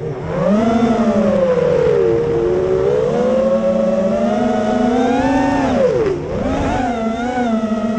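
Electric motors and propellers of an FPV quadcopter whining as it flies, heard from the onboard camera; the pitch slides up and down with the throttle, dropping sharply about two seconds in and again near six seconds before climbing back.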